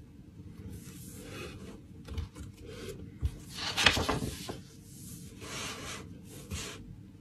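Pen scratching on a bullet journal page and paper rustling in several short stretches, loudest about four seconds in as a page is lifted and turned, over a faint steady hum.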